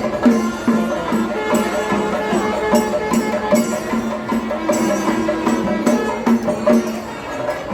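Music with a steady percussive beat about three times a second under held pitched tones.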